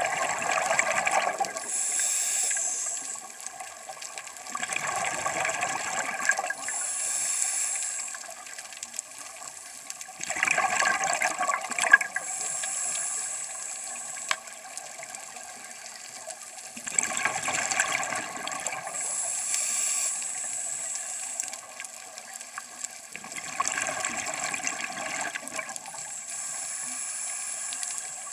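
Scuba diver breathing underwater through a regulator: a gush of exhaled bubbles about every six seconds, each followed by a shorter high hiss.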